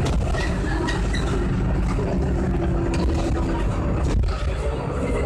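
Interior of an Irisbus Agora V3 city bus under way: a steady low engine and road rumble, with a brief jump and then a dip in level about four seconds in.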